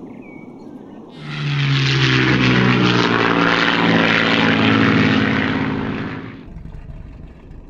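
Propeller airplane engine flying past: starts about a second in, holds loud and steady, then fades away near the end.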